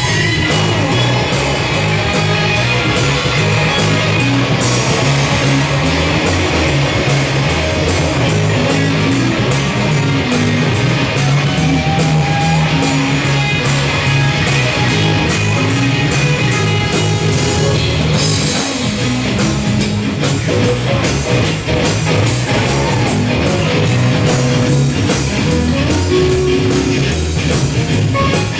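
Rock music with electric guitar, bass and drums.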